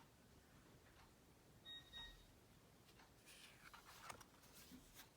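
Near silence, with faint rustles and light clicks of oracle cards being handled in the second half. A brief faint beep comes about two seconds in.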